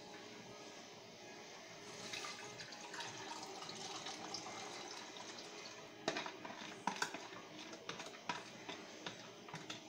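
A thin liquid sauce mixture poured from a plastic container into a small pan of boiling vinegar, a splashing pour that starts about two seconds in. From about six seconds in, a run of sharp taps and clacks.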